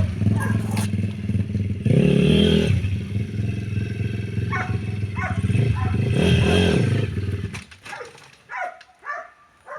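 Pit bike's single-cylinder engine running, blipped up twice and back down, then it stops about three-quarters of the way in, leaving a few short knocks and clicks.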